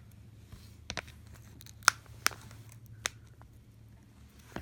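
Broken glass shards being picked and scraped off an iPad mini's frame with a small tool: a handful of sharp clicks and ticks, the loudest about two seconds in.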